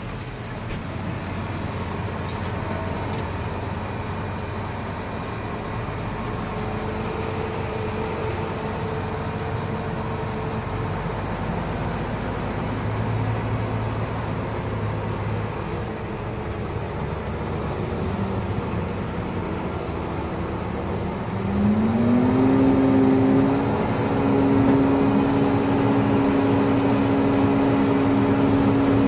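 Tractor and forage harvester engines running, heard from inside the tractor cab as a Krone BiG X forage harvester works alongside. About two-thirds of the way through, an engine note climbs in pitch and the sound gets louder, then holds a steady whine.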